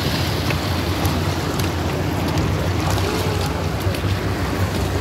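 Steady wind and sea noise with a low rumble and a few faint ticks.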